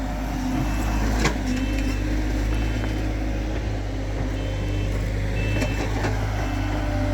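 Heavy demolition machine's engine running steadily, with short high beeps about once a second and a sharp knock about a second in.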